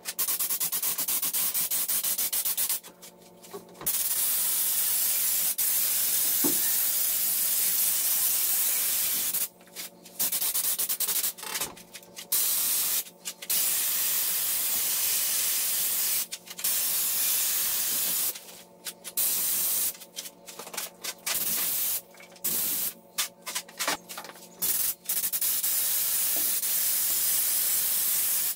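Raptor bedliner spray gun running on compressed air, hissing as it sprays the textured coating in long bursts that break off and resume over a dozen times as the trigger is released and pulled again. A steady low hum runs underneath.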